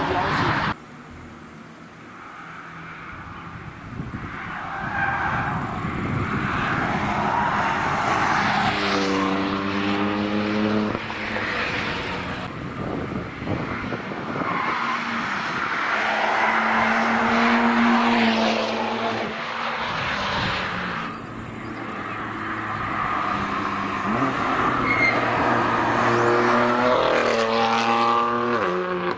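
Several BMW sports cars driving past one after another on a race track, each engine note rising and falling in pitch as the car goes by.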